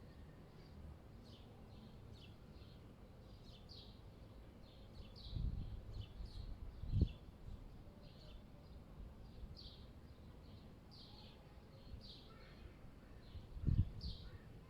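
Small birds chirping repeatedly in short, quick chirps over a steady low city background. Two louder low rumbles break in, one around five to seven seconds in and one near the end.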